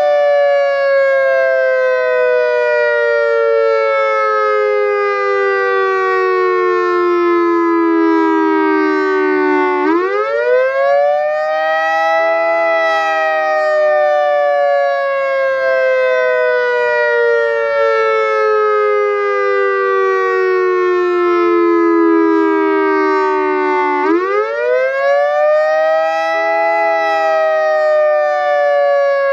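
EOWS 612 electronic outdoor warning siren sounding a loud, many-harmonic tone. The tone falls slowly over about ten seconds, then sweeps quickly back up. This happens twice, about ten seconds in and again near the end, and each time the tone starts falling again.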